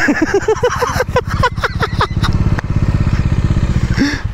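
Motorcycle engine idling with an even, steady pulse, dropping away near the end. Over it, in the first two and a half seconds, a quick run of short high-pitched calls.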